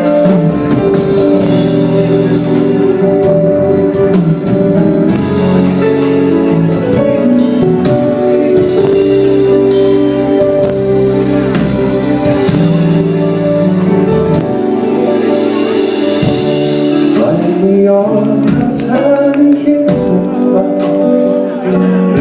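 Band music: the instrumental introduction of a song, with held chords.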